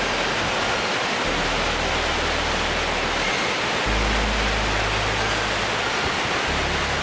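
Fast, silty mountain river rushing over boulders: a loud, steady roar of water. Low held bass notes of background music change underneath every second or two.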